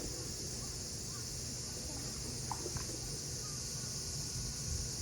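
Cicadas singing in a steady, high-pitched chorus, with a brief short note about halfway through.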